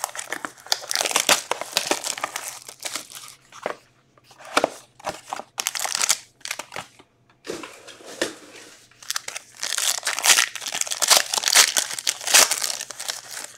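Plastic shrink-wrap and a foil card pack from a box of Topps Inception baseball cards crinkling and tearing as the box is unwrapped and the pack ripped open. The crackle comes in bursts with short pauses.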